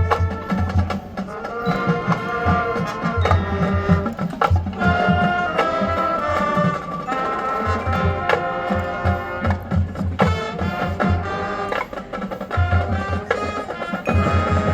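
High school marching band playing its competition show: brass chords over the drumline and pit percussion, with repeated clusters of low bass-drum hits.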